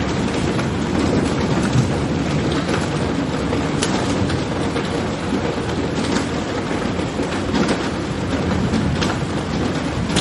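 Rain falling at a medium rate, with an almost constant soft, vague rumble of thunder underneath and scattered sharper drop ticks.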